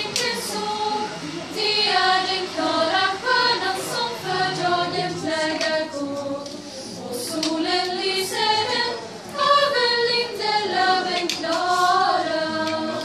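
Swedish Lucia choir of young women singing a Lucia song together, unaccompanied.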